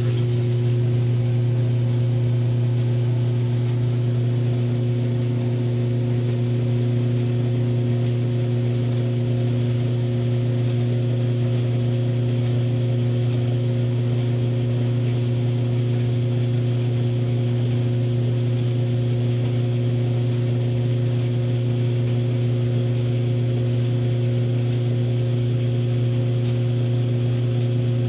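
1962 RCA Whirlpool LJA70 washing machine running, its motor giving a steady, even hum.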